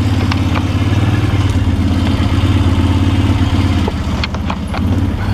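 A vehicle's engine running steadily while driving, with a low pulsing hum that eases off briefly about four seconds in.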